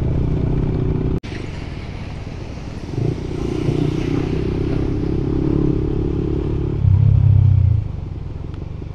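Motorcycle engine running under way, heard from the rider's own bike, with a sharp break in the sound about a second in. The low engine note swells louder for under a second near the end.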